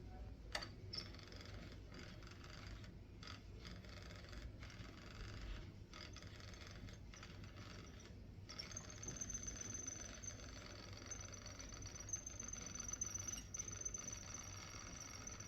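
HP LaserJet M1136 MFP printer-scanner mechanism working during its start-up initialisation: a click about half a second in, faint whirring and scraping, then a steady high-pitched whine from about nine seconds in.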